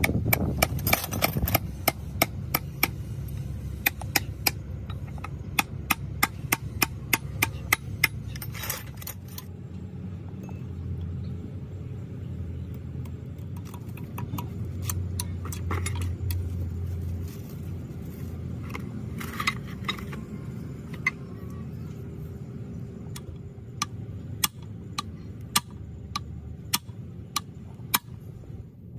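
Repeated sharp metal-on-metal taps from hand tools working on loader gearbox parts, coming about two a second, thinning out in the middle and picking up again near the end, over a steady low hum.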